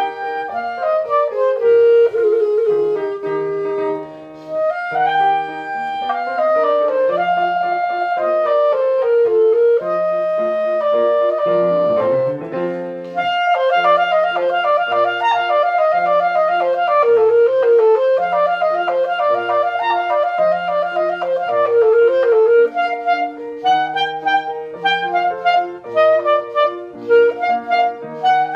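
Solo clarinet playing a classical piece over a lower accompaniment, moving between held notes and quick runs, with a busy passage of rapid notes after a brief lull about halfway through.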